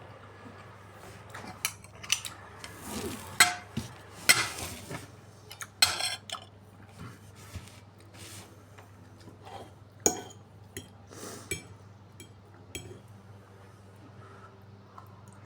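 Cutlery and dishes clinking and clattering in a string of sharp knocks, most of them in the first six seconds and fewer later, over a low steady hum.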